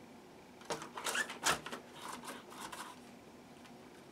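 Short rustling and clattering handling noises, a few louder ones about a second in and softer ones through the middle, like a plastic RC truck or its packaging being moved about by hand.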